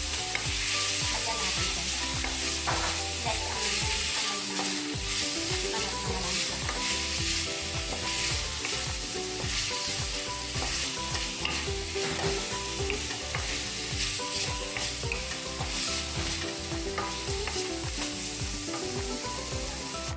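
Chicken wings sizzling in a hot wok, stirred and turned with a wooden spatula that scrapes across the pan over and over.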